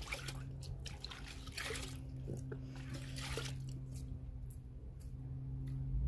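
Water sloshing and dribbling in a plastic bucket as a plastic measuring cup is dipped into the wash water and lifted out, in several short splashes.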